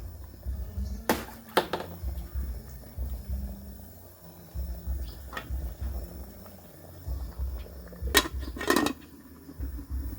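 Pots and kitchen utensils clinking, five sharp knocks spread out, two close together about a second in and two near the end, over a low uneven rumble.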